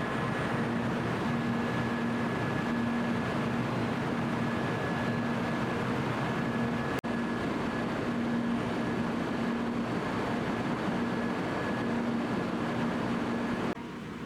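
Steady running noise of a Tokaido Shinkansen train at the platform, with a low hum that swells and fades about every second and a half. The noise drops away abruptly near the end.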